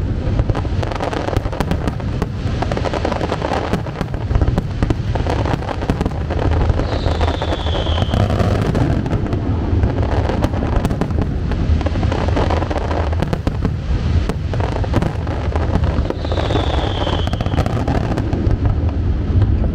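Aerial fireworks going off in a dense, continuous barrage of bangs and crackles over a steady low rumble. A high whistle falls in pitch twice.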